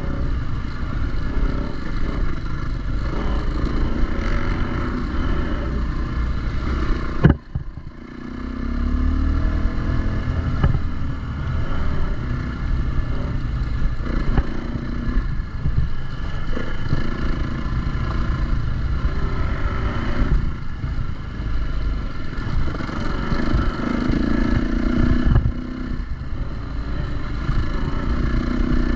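Four-stroke single-cylinder dirt bike riding along a trail, the engine rising and falling with the throttle amid rumble and clatter. There is one sharp knock about seven seconds in, and the sound dips briefly after it.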